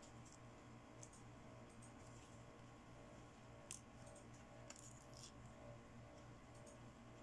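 Faint, scattered small clicks of plastic toy accessories being handled, over a low steady hum.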